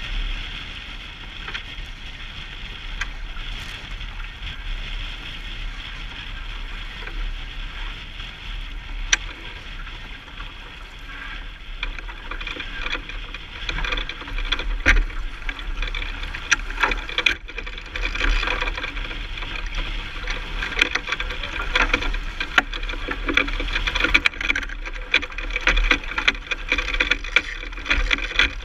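Sailboat under way in choppy water: a steady rush of water and wind with a low rumble. Scattered sharp clicks and knocks come more often from about halfway on.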